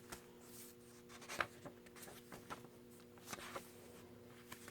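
Faint paper rustling and soft ticks as the cardstock pages and inserted cards of a handmade junk journal are handled and turned, the sharpest tick about a second and a half in. A low steady hum runs underneath.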